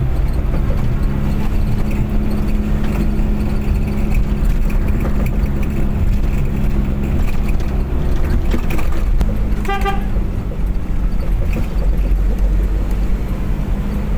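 A car driving on the road, with steady engine and road noise. A short vehicle horn toot sounds about ten seconds in.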